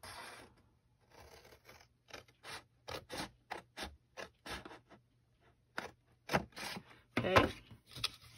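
Scissors snipping through folded paper along a score line, a quick run of short cuts at about three or four a second. Near the end the paper is shuffled and laid flat, with louder rustling.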